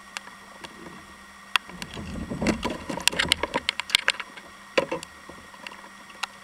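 Handling noise in a kayak: an irregular run of clicks and knocks with rustling and a low rumble, busiest from about two to four seconds in, as a hybrid striped bass and gear are picked up and held.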